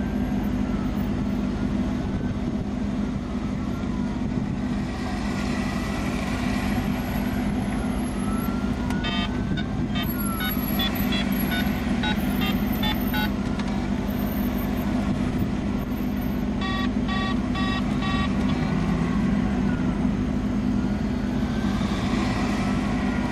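Vehicle engine running steadily with a low hum. Two runs of short electronic beeps sound over it, starting about nine seconds in and again about seventeen seconds in.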